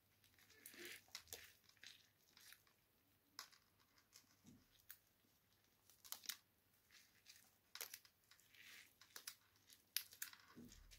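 Faint crackling and rustling of damp sphagnum moss pressed around an orchid's roots in a soft plastic cup, the cup crinkling as it is handled, in a string of short, scattered crackles.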